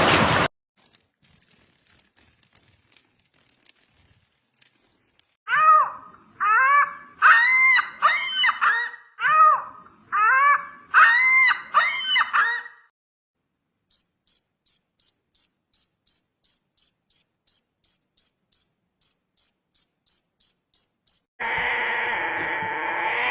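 An insect chirping at an even pace, about two chirps a second, comes after a run of loud animal calls that rise and fall in pitch and arrive in clusters. A different steady, noisy sound starts near the end.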